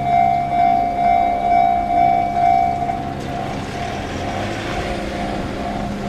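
Japanese level-crossing warning bell ringing in an even repeating pattern of about two strokes a second. About three seconds in, the running noise of an approaching train comes in and partly covers the bell.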